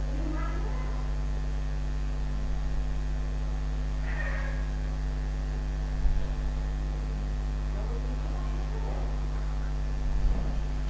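Steady low electrical mains hum on the recording, with a few faint brief noises and soft thumps about six and ten seconds in.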